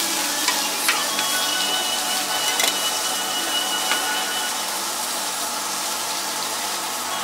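Food sizzling on a flat-top griddle, a steady hiss, with a few light clicks from utensils.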